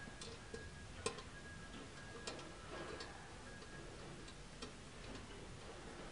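A few light, sharp metallic clicks and taps as fingers handle a chrome barrier pole and its end fitting, the sharpest about a second in, over a faint steady high tone that stops about four seconds in.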